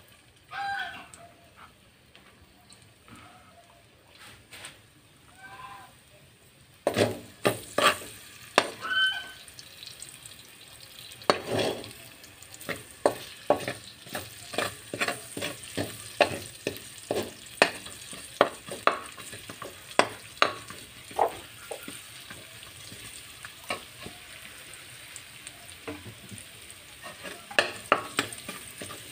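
Chopped garlic sizzling as it is sautéed in a metal wok of hot pork-chop drippings, with a metal spoon scraping and clinking against the wok as it is stirred. The sizzle and the spoon strikes pick up about seven seconds in, with several clinks a second from then on.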